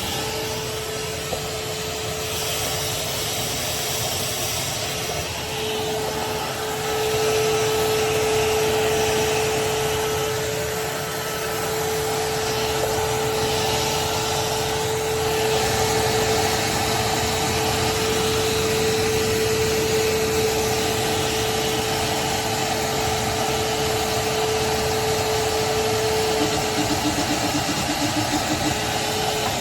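Craftsman 16-gallon, 6.5 peak HP wet/dry shop vacuum running steadily, with a rushing airflow and a constant high motor whine. A pulsing, fluttering note comes in near the end.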